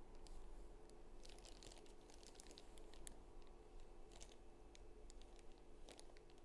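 Near silence: a faint steady hum, with scattered faint crinkles and rustles as hands move a plastic-sleeved ultrasound probe over the cat's fur.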